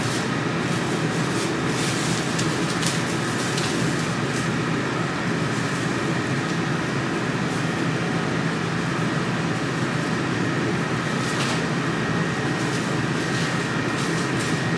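Steady, loud drone of running machinery, even in level throughout, with a faint high whine in it. A few faint, brief noises sit on top.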